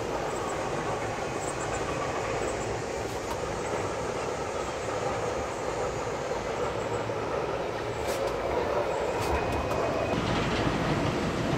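Steady rolling rumble and hiss of an aerial skyride gondola travelling along its cable, heard from inside the car, with a few sharp clicks about eight seconds in and growing slightly louder near the end.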